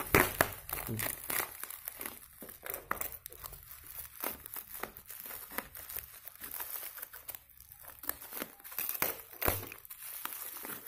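Plastic parcel wrapping and packing tape crinkling and tearing as the package is cut and pulled open by hand, with irregular crackles throughout.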